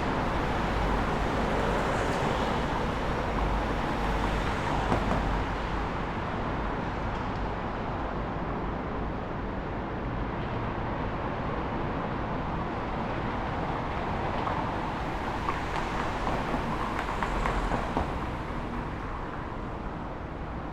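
Road traffic noise: a continuous rumble and hiss of vehicles passing, swelling louder as vehicles go by a few seconds in and again near the end.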